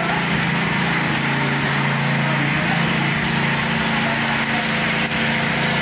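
Small gasoline engine of a portable concrete mixer running steadily at a constant speed.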